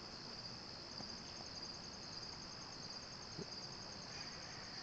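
Crickets chirping in a faint, steady, high-pitched chorus of fast, even pulses.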